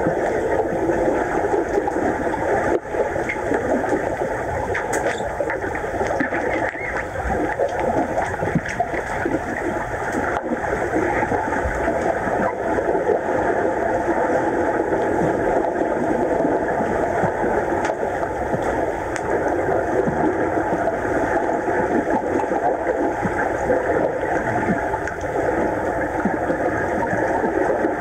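Steady muffled rushing noise heard underwater in a swimming pool during a game of underwater rugby, with a few faint clicks.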